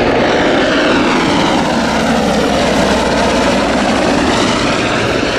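Royal Navy AgustaWestland AW101 Merlin helicopter flying, its rotor and three turboshaft engines loud and steady, with the pitch slowly shifting as it moves.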